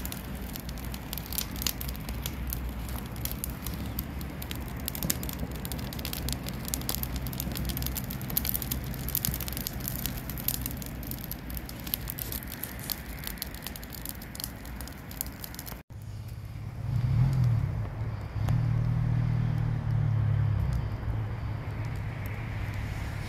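Fire of wood and green leafy branches burning in a metal barrel, crackling with many sharp pops. After a brief dropout about two-thirds through, a low engine-like hum takes over, swelling louder twice.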